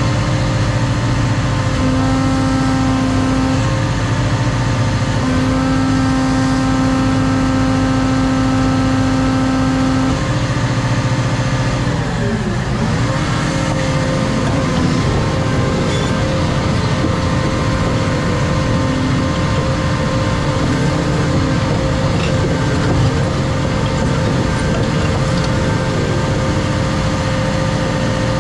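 Cat 335 Next Gen excavator's diesel engine and hydraulics running steadily under work. A steady whine comes and goes twice in the first ten seconds, and about twelve seconds in the pitch dips briefly and recovers.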